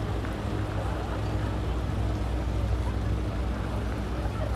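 Low, steady drone of vaporetto waterbus engines on the canal, with a faint murmur of voices over it.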